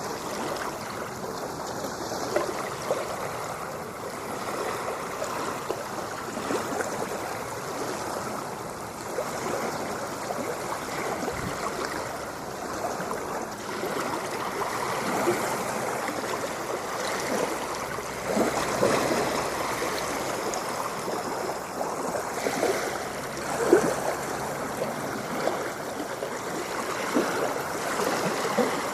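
Steady wash of moving water, sloshing and gurgling with many small splashes.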